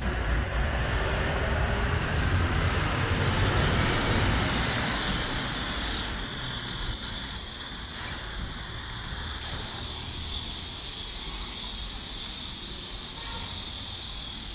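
Road traffic running past close by, its rumble loudest in the first four seconds, then easing under a steady high hiss.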